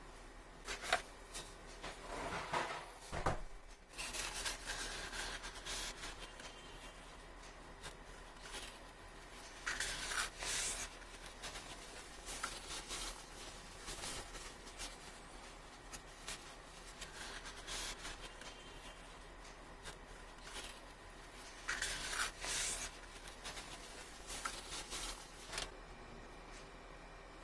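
Hands handling a smartphone's box and packaging: intermittent rubbing and sliding with scattered clicks, in a few louder stretches.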